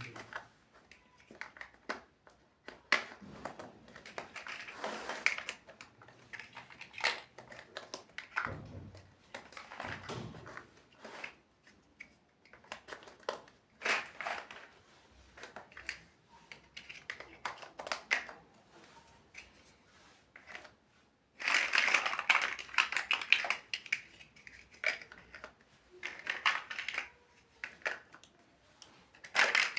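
Plastic building bricks being handled and pressed together: scattered sharp clicks and brief rustling, with a denser, louder stretch of rattling and crinkling about three-quarters of the way through.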